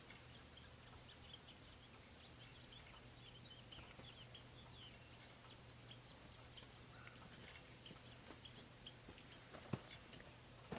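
Near silence with faint, scattered high bird chirps and a single light click near the end.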